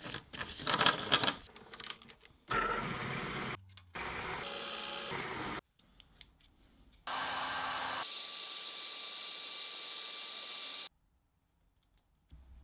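Workshop tool sounds in quick cuts: a cluster of clicks and clatter of small parts being handled, then several stretches of a small power tool running steadily. The longest runs about four seconds, and each stretch starts and stops abruptly.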